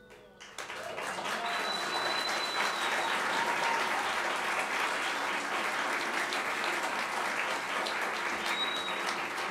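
Audience applause breaking out about half a second in and carrying on steadily, with a high whistle held over it twice.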